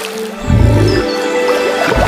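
Background music with held notes; a louder bass part comes in about half a second in.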